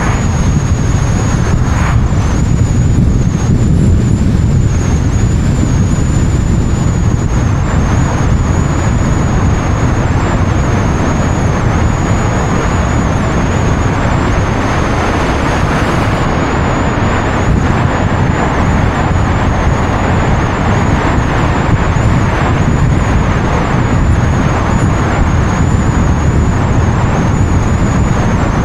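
Wind and road noise on an action camera mounted on the outside of a moving car: a loud, steady rush, heaviest in the low end, with a thin high whine wavering above it.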